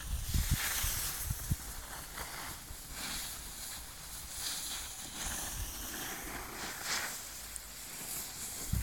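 Wind buffeting the microphone, with low thumps in the first second and a half and a hiss that swells and fades every second or two.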